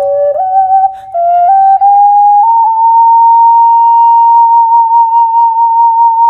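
Flute-like melody in two parts stepping through short notes, then settling about two and a half seconds in on one long held note with a slight vibrato.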